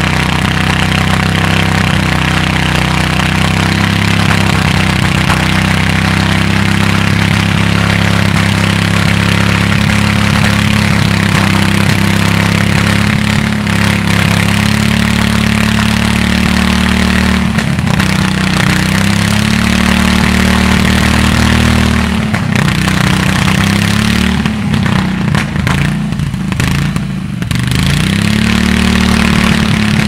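Harley-Davidson VFD 1200cc V-twin engine driving a Dolmar Type C two-man chainsaw through a fir trunk, running steadily under cutting load. From about two-thirds of the way in, the engine speed drops and picks up again several times, then settles back to a steady run near the end.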